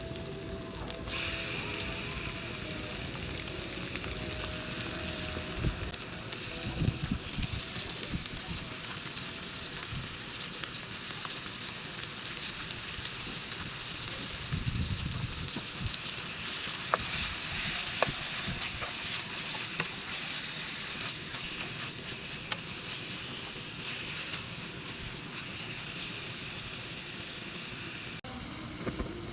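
Chicken breast sizzling as it fries in a pan: a steady hiss that swells about a second in, with a few faint clicks along the way.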